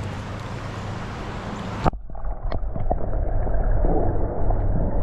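Rushing river water and wind on the microphone. About two seconds in, the sound cuts off abruptly to a low, gusty wind rumble with a few faint clicks.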